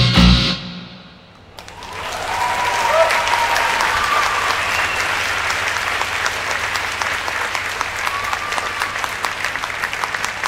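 The last beats of electronic music stop within the first half second and fade out, and after a brief lull a large audience breaks into steady applause with a few cheers.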